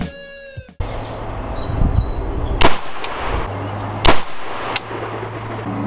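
Brief intro music that cuts off abruptly, then an AR-15 rifle firing two shots about a second and a half apart, each a sharp, very loud crack with a short echo.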